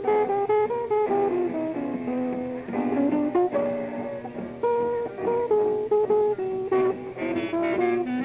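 A jazz guitar plays a quick melodic line of single notes with a small trio of guitar, double bass and piano. It is an old 1954 live recording with a muffled sound that cuts off above the upper midrange.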